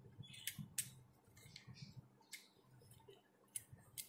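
Faint, irregular clicks and light rubbing of a small hand tool being handled, about six clicks spread unevenly.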